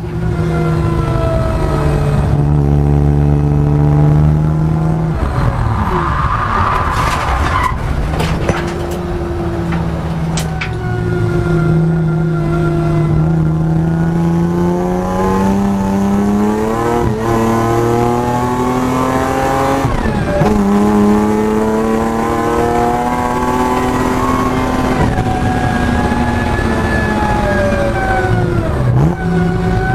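Supercharged BMW M50B25 straight-six (Eaton M62 blower) heard from inside the cabin, pulling hard with its pitch climbing under acceleration and dropping sharply at gear changes about twenty seconds in and again near the end. There is a short hiss about six to seven seconds in.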